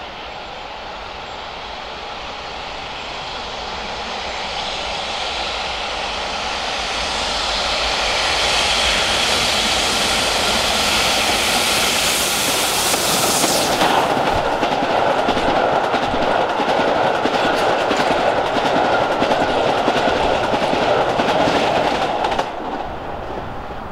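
Steam locomotive 35018 British India Line, a rebuilt Merchant Navy class 4-6-2, hauling a passenger train at speed, growing louder as it approaches. About halfway through the sound changes as the engine passes, and the coaches roll by with wheels clattering over the rails. The level drops sharply near the end.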